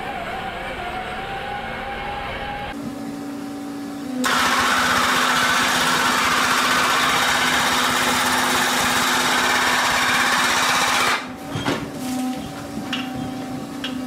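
Underground mining machinery running: a loader's engine with a wavering tone, then a hydraulic machine's steady hum. About four seconds in, a loud hissing noise starts over the hum and cuts off suddenly about seven seconds later, leaving the hum and a few clicks.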